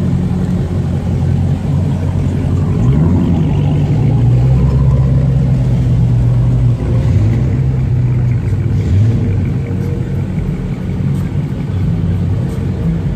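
Dodge Hellcat muscle cars' supercharged V8 engines running as the cars roll slowly past one after another, loud, with the engine pitch rising and falling a few times.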